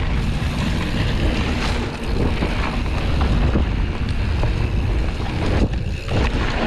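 Wind buffeting the microphone as a Canyon Strive enduro mountain bike rolls fast down a dry dirt trail, with the tyres running over the dirt and the bike knocking and rattling over bumps.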